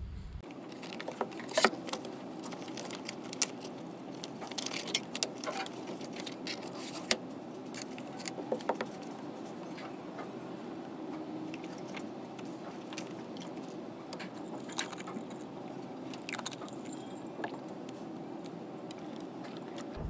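Pages of a paperback workbook flipped and handled on a desk: a run of sharp clicks and paper rustles in the first half and a few more later, over a steady room hum.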